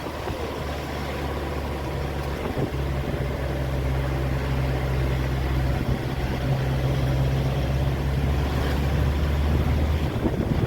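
An engine running steadily with a low hum that strengthens about three seconds in and eases near the end, over hissing noise.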